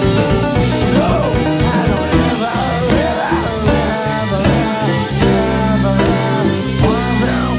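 Rock band playing live: guitar, bass and drums, with gliding notes over the steady band sound.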